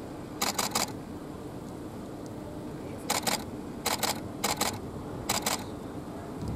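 Camera shutters firing in five short bursts of three or four rapid clicks each, over a steady low background hum.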